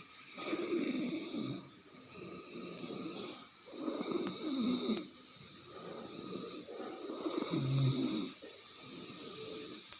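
A sleeping person snoring heavily: three loud snores about every three and a half seconds, with softer breathing between them.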